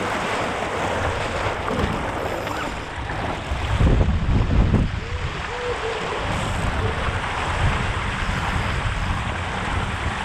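Water rushing and spraying past the bow of an RS K6 sailboat sailing fast, with wind buffeting the microphone; a stronger gust about four seconds in.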